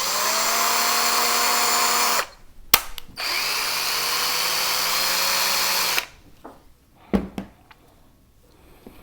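Deli DL-DZ12-5A2 cordless drill-driver run twice with no load, each run about two to three seconds, its motor and gearbox whining: the first comes up to pitch quickly, the second winds up more slowly to a lower pitch. This is typical of the same tool run in its two gear-speed settings. A few sharp clicks come between and after the runs.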